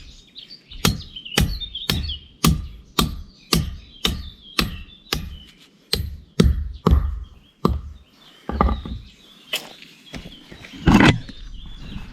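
Steel rod being hammered into the ground, about two sharp blows a second with a metallic ring, stopping around eight seconds in. A few scattered knocks follow, one louder near the end, and birds chirp in the background.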